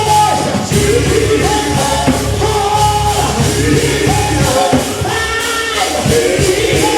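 Live gospel worship music: voices hold long, sliding sung notes over a band with a steady bass line and drums.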